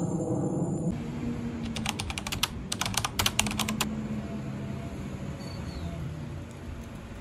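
A quick, irregular run of a dozen or so sharp clicks lasting about two seconds, over a low steady hum.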